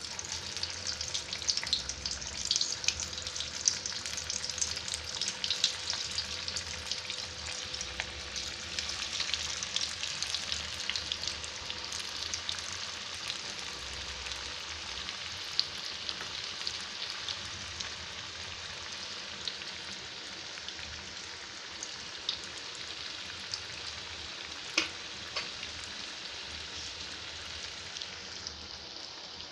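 Breaded paneer fingers deep-frying in hot oil in a kadai: a steady sizzle full of crackling, with a few louder single pops, easing off slightly as the frying goes on.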